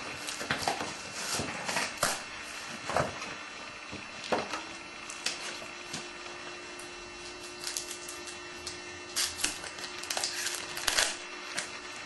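A sealed box of trading card packs being opened and handled: irregular crinkles, crackles and taps of cardboard and foil wrapper, with a faint steady electrical hum setting in about four seconds in.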